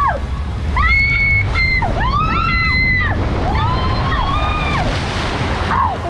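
Riders screaming in long, held cries that rise and fall, over the steady rush of water as their inflatable tube slides down an enclosed tube slide. Near the end a hissing splash as the tube shoots out into the pool.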